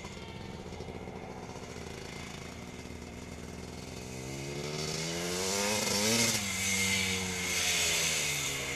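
Husqvarna 250 CR's two-stroke single-cylinder engine running under a rider. Its revs climb to a peak about six seconds in, then drop back and rise and fall again.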